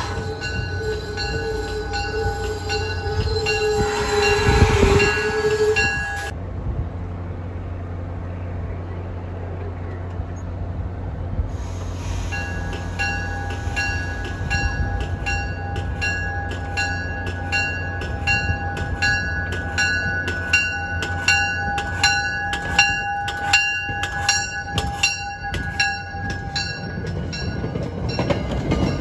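MBTA commuter rail push-pull train rolling slowly into a station, cab car leading, with a steady low rumble. Its warning bell rings for the first six seconds, stops, and starts again about twelve seconds in, in regular strokes a little over once a second, until near the end.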